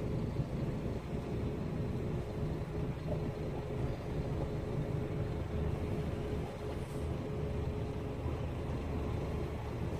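Brick delivery lorry's diesel engine running as the truck drives slowly over rough ground, heard from the cab, with a steady low rumble and a thin steady tone above it.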